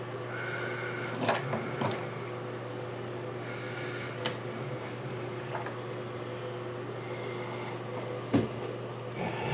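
Bathroom sink faucet parts being handled, giving a few scattered clicks and knocks, the loudest near the end, over a steady low hum.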